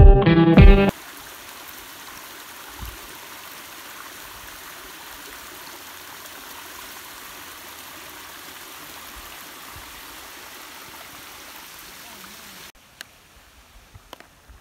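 Small creek cascading down a rocky gully: a steady rush of trickling water. It cuts off suddenly near the end, leaving a few faint knocks.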